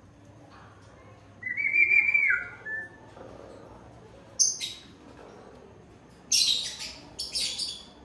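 African grey parrot calling: a whistle that drops in pitch about a second and a half in, a short high squawk midway, then two harsh screeches near the end.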